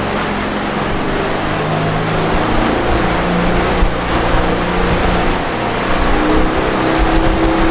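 Inflatable dinghy's outboard motor running under throttle inside a low canal tunnel, its pitch climbing slowly as it speeds up.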